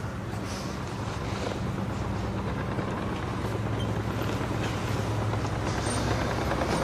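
A steady low mechanical drone, like a running engine, over a faint hiss, growing slightly louder.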